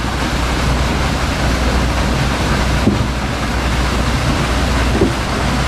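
Heavy stream of water gushing from a large outfall pipe and crashing into the lake: a steady rushing splash with a low steady hum underneath. Two light knocks, about three and five seconds in.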